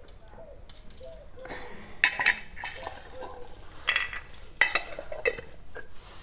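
Hands working a crumbly semolina, sugar and khoa mixture in a steel plate: gritty scraping and rubbing against the metal, with metallic clinks. It is quieter for the first second and a half, then comes in loud bursts about two, four and five seconds in.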